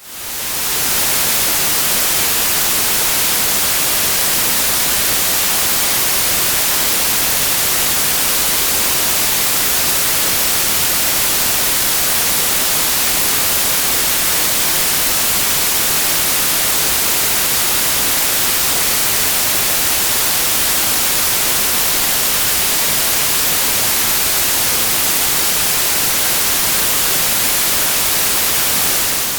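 Synthetic white noise test signal: a steady, even hiss across the whole audible range, fading in during the first second.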